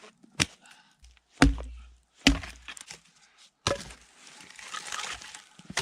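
Wood being chopped: four sharp strikes about a second apart, then a couple of seconds of scratchy rasping noise.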